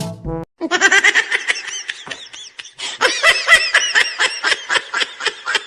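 High-pitched laughter, a fast run of short giggles that rise and fall in pitch.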